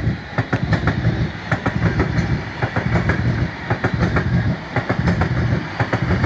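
Class 350 Desiro electric multiple unit passing at speed close by: a steady low rumble of wheels on rail with rapid clickety-clack as each bogie's wheels strike the rail joints.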